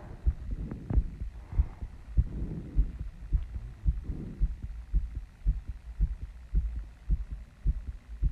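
A woman's heartbeat, fast after running and squats, thumping evenly about two beats a second. Heavy breathing sounds over the first half and fades out about four and a half seconds in.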